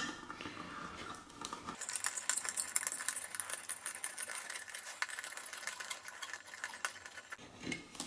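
Leatherman multitool can opener levering and cutting around the rim of a tin can: a rapid run of small metallic clicks and scraping, starting about two seconds in and stopping shortly before the end.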